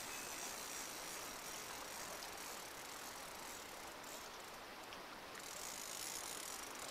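Creek water running steadily, an even rushing hiss.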